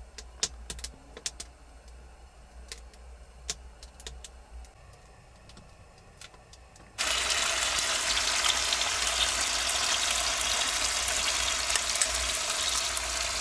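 Scattered sharp clicks over a quiet background. About seven seconds in, the sound cuts suddenly to the steady, loud sizzle of eggs and sausages frying in a pan.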